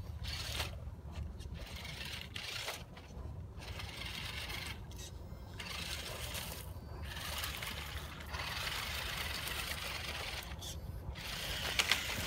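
Small electric RC rock crawler driving over dry leaves and twigs: crunching and rustling in bursts with short pauses between them.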